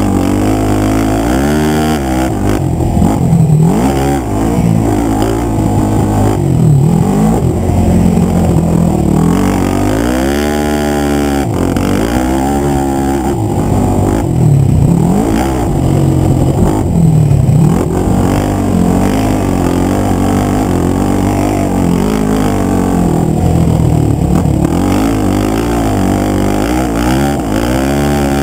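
2006 Yamaha YFZ450 ATV's stock single-cylinder four-stroke engine under hard riding, its pitch climbing and falling again and again as the throttle is opened and chopped, with longer rising pulls about ten seconds in and near the end.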